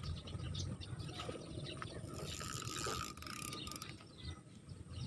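Faint rustling handling noise from fishing line and a spinning reel being worked close to the microphone, with a hissy stretch about two seconds in, over a low rumble.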